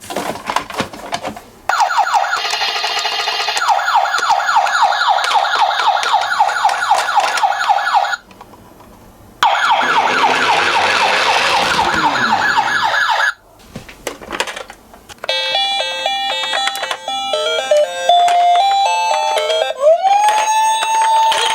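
Toy ambulance's electronic siren sound gimmick. A fast repeating yelp siren plays and is cut off twice, then a stepped two-tone hi-lo pattern, and near the end a wail that rises and holds.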